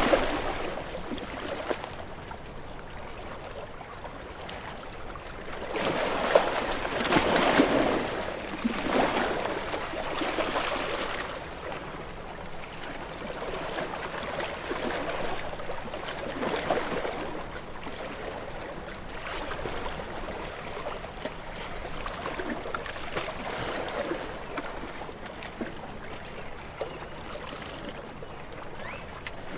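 Sea waves breaking on a rocky shore and washing back among the rocks. The surf surges louder about six to eight seconds in and again around ten seconds, with smaller swells later.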